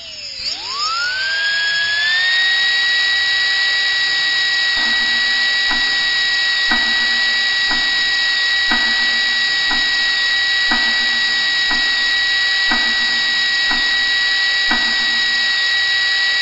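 Dentist's drill whining at a high pitch: it winds down, spins back up over the first two seconds, then holds steady. From about five seconds in, a regular stroke sounds beneath it about once a second.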